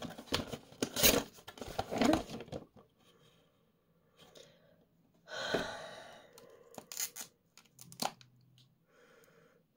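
Cardboard perfume box being opened and the bottle drawn out of its insert: scraping, tearing packaging sounds. Near the end there are a few light clicks as the bottle and its cap are handled.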